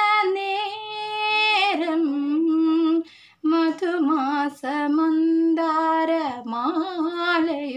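A woman singing a Malayalam song solo without accompaniment, holding long notes with wavering ornaments and pausing briefly for breath about three seconds in.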